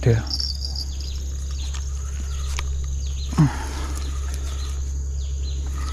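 Open-air riverbank ambience: a steady high-pitched drone over a low hum, broken by two short vocal-like sounds that fall quickly in pitch, one at the start and one about three and a half seconds in.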